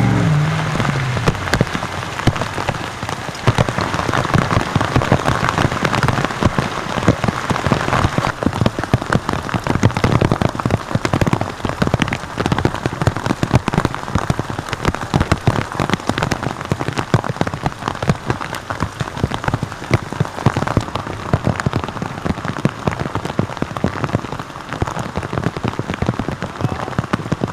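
Heavy rain pelting down on a hard surface, a loud, dense stream of drop impacts that keeps up throughout.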